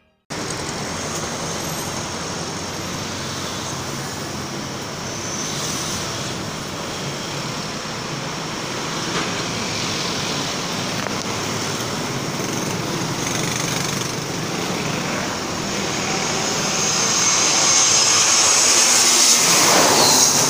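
Steady road-traffic noise, then an Airbus A321 jet on landing approach growing louder over the last few seconds as it comes low overhead, with a high engine whine.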